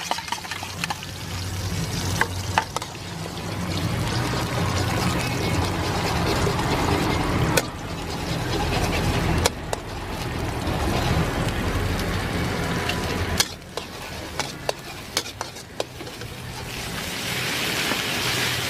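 Beaten egg sizzling in hot oil in a wok, with a metal ladle scraping and stirring and knocking sharply against the wok a few times. The sizzle eases partway through, then builds again as rice and greens go into the wok.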